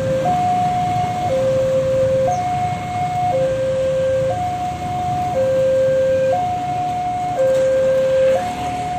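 Railway level-crossing warning alarm sounding a steady two-tone signal, alternating low and high about once a second, the warning that a train is coming and the barriers are closing. Motorbike and car traffic runs underneath.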